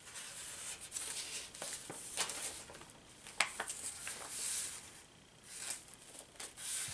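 Paper pages of a handmade junk journal rustling and crinkling as they are turned and handled, with several light clicks and taps.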